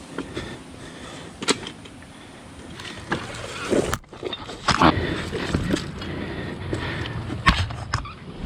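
GPX FSE 250 dirt bike engine running at low revs, with scattered sharp knocks and clunks.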